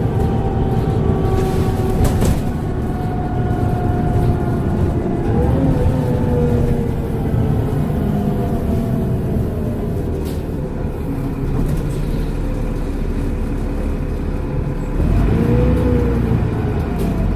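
Transbus Trident double-decker bus with Voith automatic gearbox running under way, its engine rumbling under a whistling whine that the uploader takes for the turbo. The whine climbs as the bus pulls away about five seconds in, sinks slowly, and climbs again near the end as the engine gets louder. A short knock comes about two seconds in.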